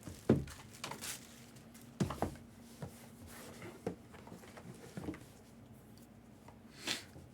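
Quiet handling noises: a scattered series of soft taps and clicks, about seven over several seconds, as a mystery baseball and its packaging are handled. A faint steady hum sits underneath.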